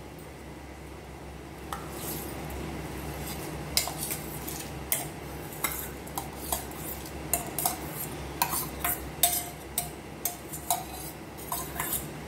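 Steel utensils and a ladle clinking against a steel pot of boiling milk as rice is added and stirred in: irregular sharp clinks starting about two seconds in, over a steady low hum.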